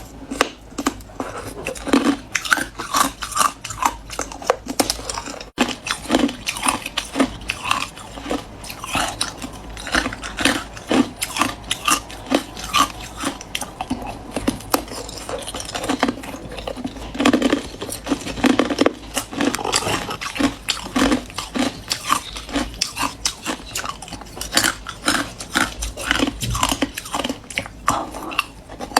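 Hard clear ice being bitten and chewed: a steady run of sharp crunches and cracks, several a second, as the ice breaks between the teeth.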